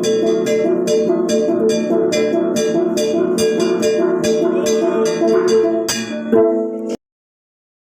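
Murut Timugon gong ensemble playing paluan gong: tuned gongs struck in a steady repeating rhythm of about three strokes a second, each ringing on. A louder final stroke comes about six seconds in, and the sound cuts off abruptly a moment later.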